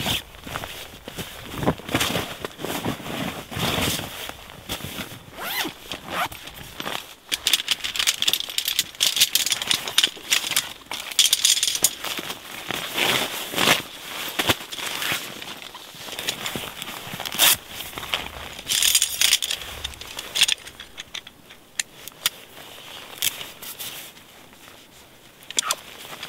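Nylon sleeping-bag and stuff-sack fabric rustling and crinkling in irregular bursts as it is handled and stuffed, with occasional light clinks of metal tent poles. It goes quieter for a few seconds near the end.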